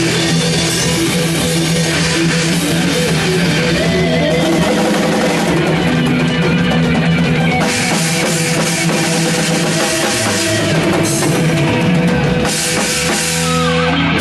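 A rock band playing live in a rehearsal room: electric guitars, electric bass and a drum kit together in a steady, continuous groove.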